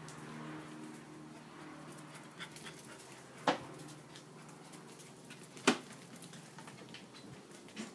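Welsh Corgi puppy barking twice, each bark short and sharp, about three and a half and five and a half seconds in.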